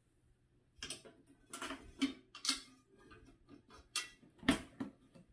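A series of sharp clicks and knocks as a griddle plate is set down into an electric smokeless grill's plastic housing and its glass lid is handled; the loudest knock comes near the end.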